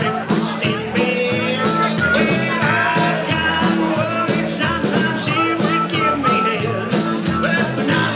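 Live rock and roll band playing an instrumental break: a harmonica lead over electric guitar, upright bass and drums keeping a steady beat.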